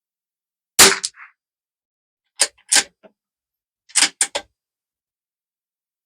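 A bolt-action .22 LR rimfire rifle fires once, a sharp crack about a second in. It is followed by two clusters of quieter sharp metallic clicks, typical of the bolt being worked to eject the case and chamber the next round.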